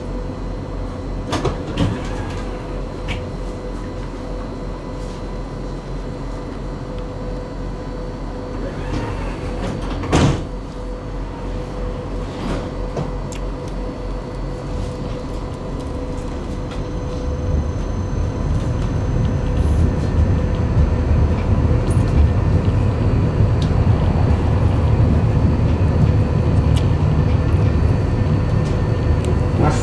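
Inside a tram: standing with a steady electrical hum from its equipment, a single loud knock about ten seconds in, then from about seventeen seconds the tram pulls away and the low rumble of its wheels and motors grows louder.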